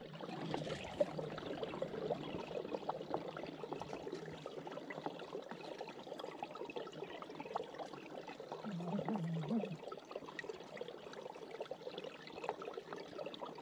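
Meltwater runoff running and trickling under a crust of stream ice: a steady watery rush with many small drips and splashes. A brief low wavering tone comes about nine seconds in.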